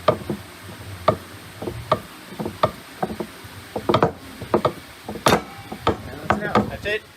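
A run of irregular sharp knocks and clanks, two to four a second, some ringing briefly, over a faint low hum.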